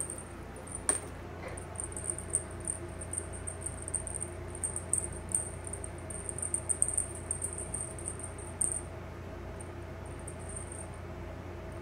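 A cat wand toy being waved and shaken gives a high, thin chirring in quick, irregular pulses that fades after about nine seconds. There is a short tap about a second in.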